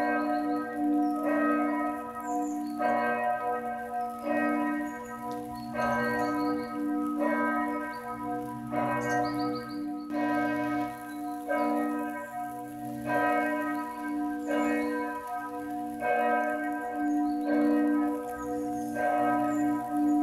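A bell tolling in a slow, even rhythm, about one stroke every second and a bit, each stroke ringing on into the next over a steady low hum.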